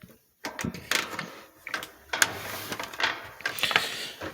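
Handling noise: a run of irregular clicks, knocks and rustles as things are moved about close to the microphone.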